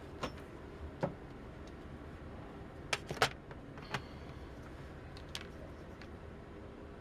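Scattered light clicks and taps of tweezers and small metal tools on a circuit board and bench while a wire is being positioned for soldering, about half a dozen in all, the loudest a close pair about three seconds in.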